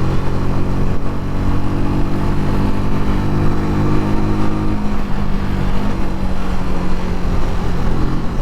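Keeway Superlight 125cc motorcycle engine idling steadily, its pitch shifting a little about five seconds in.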